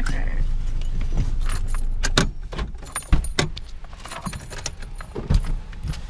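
Clicks and metallic jingling of seat belt buckles and keys inside a car as its occupants unbuckle. A steady low car rumble drops away about two seconds in.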